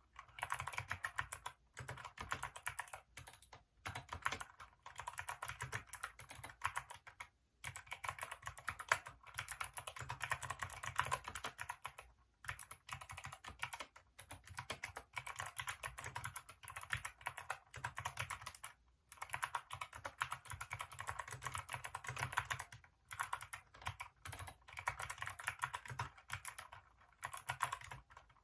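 Hacker K611 mechanical keyboard with Kailh optical switches being typed on fast, in runs of rapid keystrokes lasting several seconds with short pauses between them.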